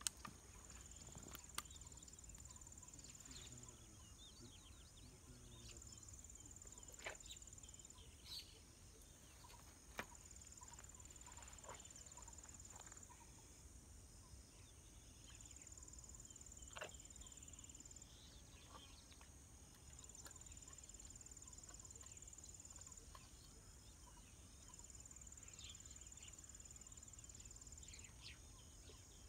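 Faint insect chorus: a high, thin buzz that comes and goes in spells of two or three seconds, with a few faint clicks scattered through it.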